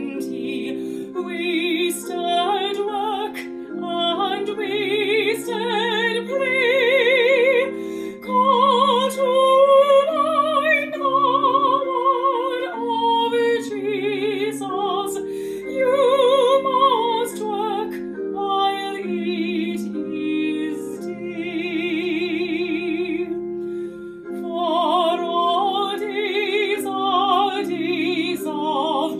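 A woman singing a solo song with wide vibrato over an accompaniment of steady held chords.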